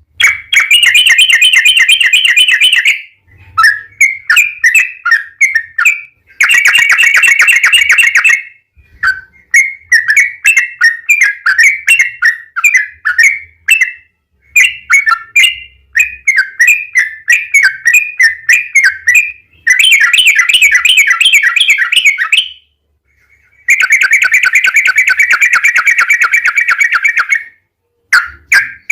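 Yellow-vented bulbul (trucuk) singing. Long runs of very rapid, rolling repeated notes alternate with shorter bubbly chattering phrases, with brief pauses between.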